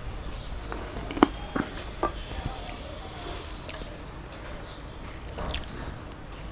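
A few sharp clinks of a small steel bowl against a steel thali in the first two seconds, the loudest about a second in, then quieter sounds of fingers mixing rice and daal on the plate.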